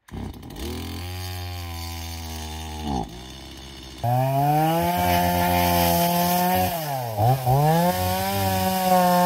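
Small Stihl MS170 two-stroke chainsaw idling, with a short throttle blip about three seconds in. About four seconds in it revs up to a high, steady pitch, which sags and recovers once around seven seconds.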